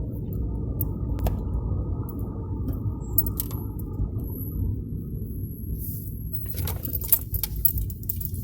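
Scion FR-S brakes making noise over a steady low rumble from the moving car. A thin, high-pitched squeal runs for about three seconds in the middle, then a burst of rattling clicks comes near the end.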